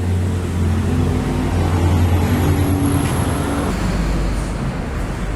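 A motor vehicle engine running as a steady low hum that drops to a lower pitch about two-thirds of the way through.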